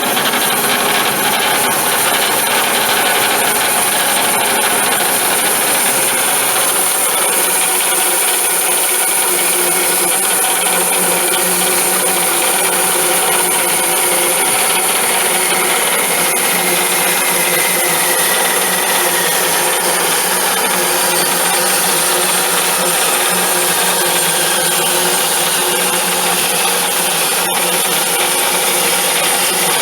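Bandsaw running and cutting lengthwise through a thick elm beam, a loud steady sawing noise with no break.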